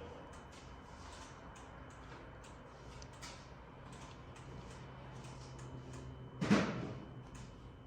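A low steady hum with faint, irregular ticking, and a single sharp knock about six and a half seconds in, where the hum stops.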